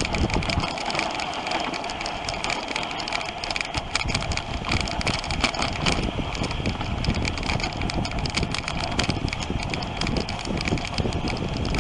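Dog sled gliding over snow: a steady scraping hiss from the runners with dense, rapid clicking and rattling from the sled frame.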